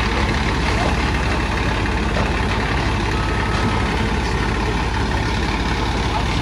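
A fire truck's diesel engine running close by: a steady low rumble with an even, rapid firing pulse.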